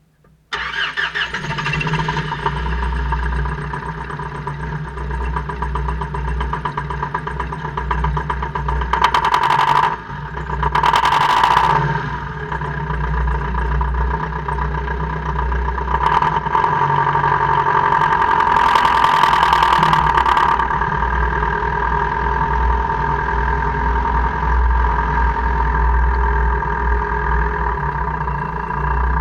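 2002 Jeep Cherokee KJ running, a steady mechanical drone with a strong low hum, with louder harsh surges about nine, eleven, sixteen and nineteen seconds in.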